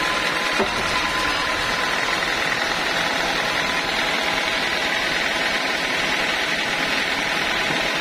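Band sawmill running steadily with no log in the cut, a constant machine drone with a faint steady whine.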